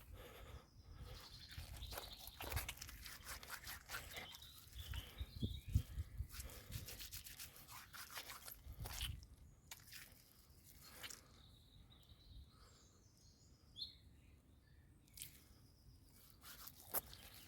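Wet silver birch leaves squelching and crackling as they are squished and rubbed between the hands, working their saponins into a froth. The squelching runs for about nine seconds, then stops, leaving only a few faint clicks and soft bird chirps.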